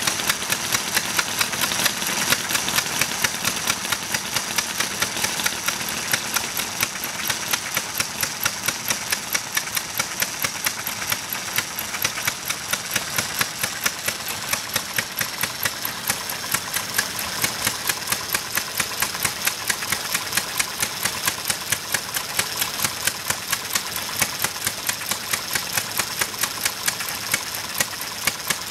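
Restored International Harvester 1 1/2 hp Model M single-cylinder stationary engine running unloaded, with steady, even beats about two to three a second over a rapid mechanical ticking.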